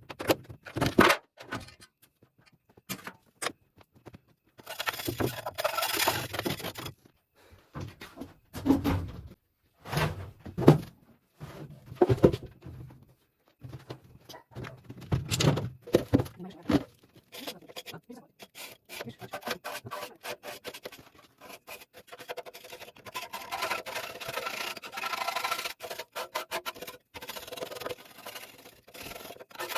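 Hand work on an old stove boiler: a series of irregular knocks and thunks with short quiet gaps, then a stretch of steadier scraping in the last several seconds.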